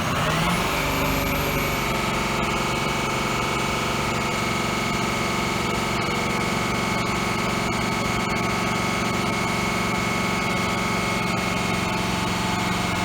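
Ford 6.0 Power Stroke V8 turbo-diesel revving up in the first half second, then held at a steady raised speed. The engine has a sticking cylinder-8 injector that lets compression push air back into the fuel system, causing misfires, as the mechanic diagnoses it.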